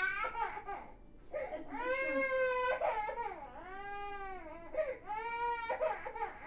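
A toddler crying: a string of long, high-pitched wails, about five in a row, each broken by a short catch of breath.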